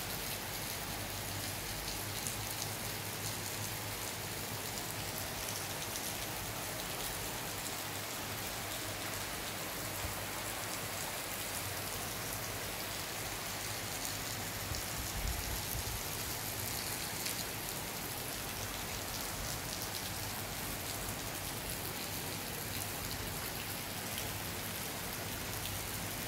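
Steady rain falling on grass, paths and paving, an even hiss of raindrops on wet surfaces.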